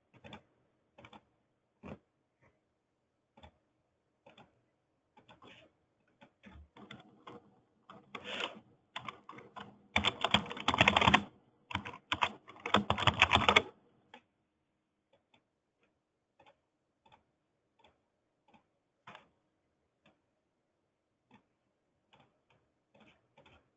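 Typing on a computer keyboard, entering form details: scattered keystrokes, then a dense run of fast typing from about eight to fourteen seconds in, then sparse single clicks.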